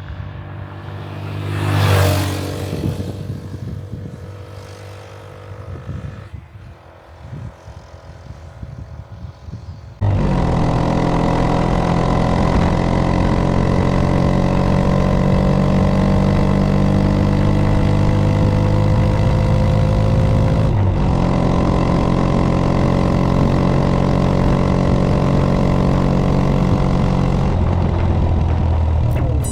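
Italika DM150 motorcycle's single-cylinder 150 cc engine: the bike passes by, loudest about two seconds in and then fading away. About ten seconds in, the engine sound cuts abruptly to a loud, close running note under load whose pitch climbs slowly, with a short break about two-thirds of the way through, as at a gear change.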